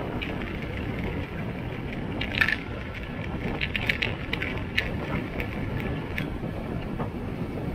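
Steady wind and riding noise on the microphone of a camera carried on a motorcycle leaning through bends. From about two seconds in, a scatter of short, sharp crackles comes through it, the loudest one first.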